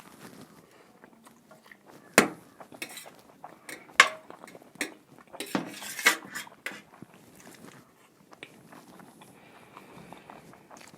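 Cutlery clinking and knocking against a dish a few times, the sharpest strikes about two, four and six seconds in, with quieter eating and chewing sounds between.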